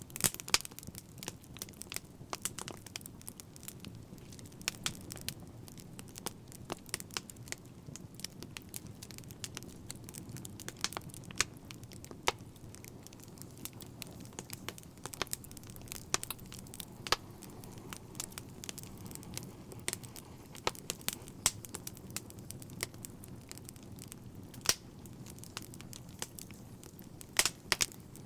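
Wood fire crackling steadily, with irregular sharp pops and snaps over a low, steady rush of flame.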